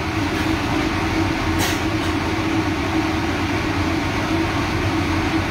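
Steady drone of a ship's engine and machinery heard inside the vessel's mess room, a constant low hum. A brief sharp sound cuts in about one and a half seconds in.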